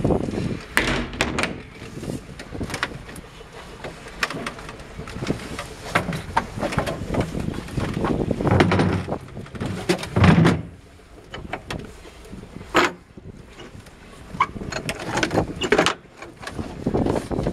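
Irregular knocks, clicks and bumps from a handheld camera being carried around a boat's fittings, over a rough rumble, with heavier low thumps about halfway through and a sharp knock soon after.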